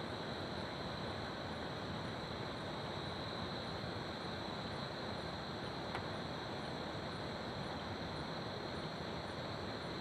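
Crickets trilling steadily over the continuous rush of a river, with a fainter, higher chirp repeating about twice a second. A single soft tick about six seconds in.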